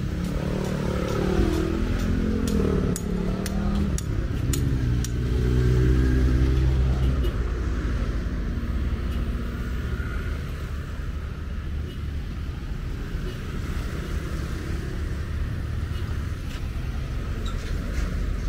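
Street traffic: motor vehicles passing close, engine notes sliding up and down for the first seven seconds, loudest about five seconds in, then a steady low traffic rumble.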